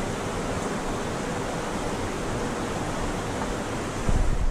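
Steady rush of creek water flowing over rocks, with a brief low rumble on the microphone near the end.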